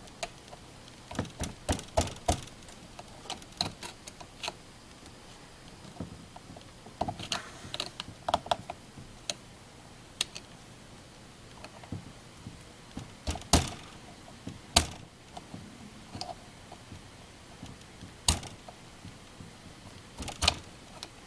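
Irregular light clicks and knocks of plastic and metal chainsaw parts being handled as a fuel line is worked off the carburetor, with a couple of sharper knocks about halfway through.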